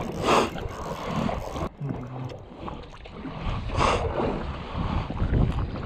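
Wind buffeting the microphone and water slapping against the hull of a small boat at sea, with two short bursts of louder noise, one right at the start and one about four seconds in.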